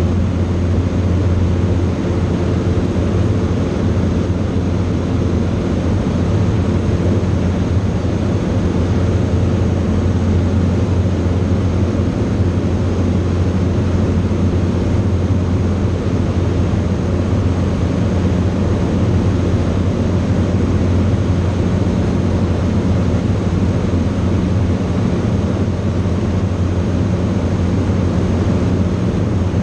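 Cockpit noise of a Grumman AA-5A Cheetah light aircraft in cruise: its four-cylinder Lycoming O-320 piston engine and propeller droning steadily, with a strong low hum.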